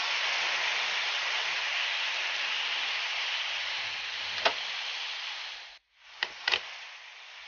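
Potato strips deep-frying in a small pot of hot oil: a steady sizzle, with a sharp click about two-thirds of the way through. Near the end the sizzle is quieter, and two or three quick sharp clicks come over it.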